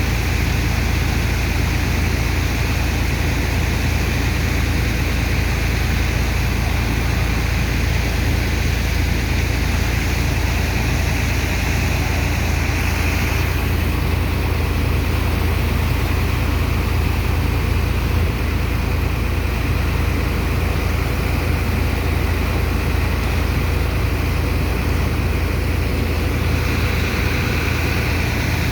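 Sand dredger's heavy engine and water pump running steadily with a deep, continuous drone under a rushing hiss; the hiss falls away about halfway through and comes back near the end.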